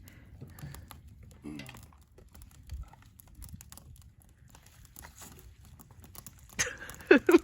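Campfire crackling: faint, irregular snaps and pops. Near the end comes a short, loud burst that looks like a voice.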